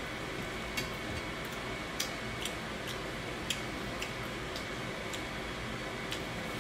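Mukbang eating sounds close to the microphone: short sharp clicks at uneven intervals, roughly one every half second, over a steady hiss.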